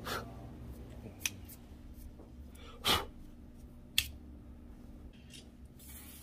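Fingers rubbing and handling a rifle's receiver, giving a few scattered scrapes and clicks. The loudest scrape comes about three seconds in and a sharp click follows about a second later.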